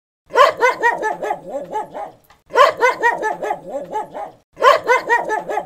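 Dog barking in three rapid runs about two seconds apart, each run a quick string of barks that starts loud and tails off.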